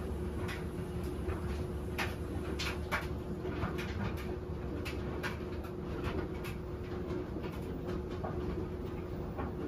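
Washing machine running: a steady motor hum with a constant whine, and irregular soft knocks and swishes from the load turning in the drum. The drum is being turned to gauge how much load is in it.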